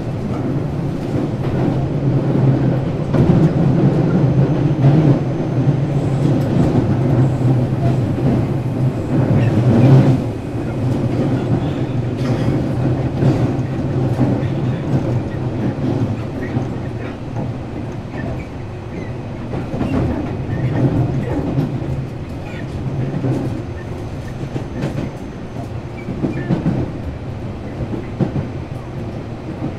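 Tobu 8000-series electric train running at speed, heard inside the motor car: a steady low drone from the running gear and traction motors, with wheels clicking over rail joints. The strongest drone eases off about ten seconds in.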